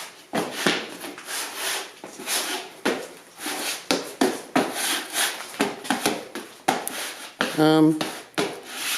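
Shoe soles scuffed and shuffled against the floor as foley for fight-scene footsteps, a rhythmic scraping of about two strokes a second. A short voiced sound breaks in near the end.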